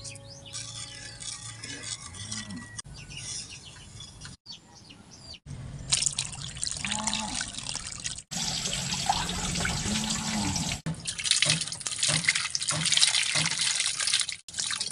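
Water pouring and a tap running in a sink, split into short clips with several abrupt cuts between them. Salted water is poured from a wooden bowl over sliced bitter gourd, then tap water splashes over vegetables in a wooden tray.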